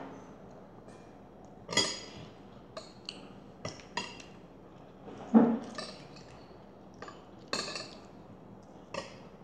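Scattered light clinks and knocks of dishes on a table, about eight separate taps, some with a short ring after them. The loudest knock comes about halfway through.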